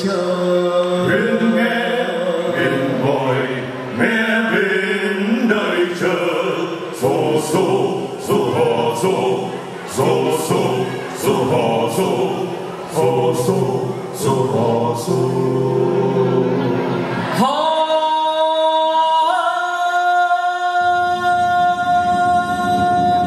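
Music with a choir of voices singing. Sharp percussive strikes come about twice a second through the middle. About three quarters of the way in it changes to long, steady held notes.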